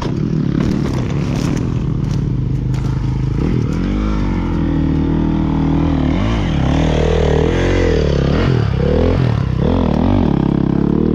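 Off-road dirt bike engine, steady at first with scattered clicks and clatter, then revving up and down repeatedly as the throttle is worked over the trail from about four seconds in.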